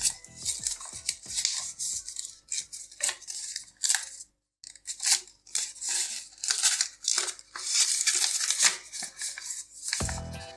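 A folded A4 paper sheet being bent and creased by hand, with irregular short rustles and scrapes of paper. The sound drops out completely for a moment a little before the middle.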